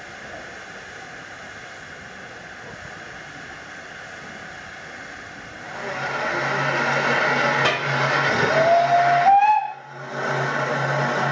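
Steam hissing from SECR H class 0-4-4 tank engine No. 263. Partway through the hiss gets louder, and a short steam whistle blast of about a second sounds, its pitch rising slightly.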